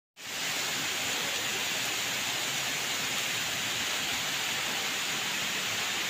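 Steady rush of a waterfall, water pouring down a rock face, with no change in level.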